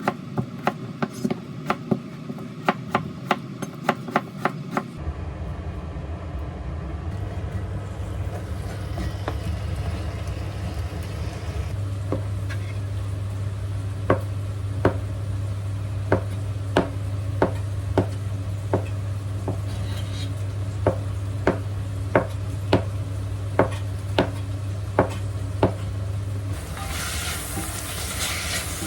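Kitchen knife chopping on a cutting board, about three quick chops a second, for the first few seconds. Then a steady low hum sets in, with slower single knocks, and frying food starts to sizzle near the end.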